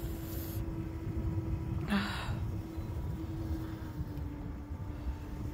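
A low, steady outdoor rumble with a faint constant hum, and a short exhaled breath about two seconds in.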